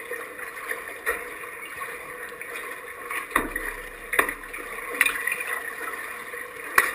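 Pool water lapping and splashing against a kayak hull and a foam paddle float at the waterline: a steady wash of moving water broken by several sharp slaps.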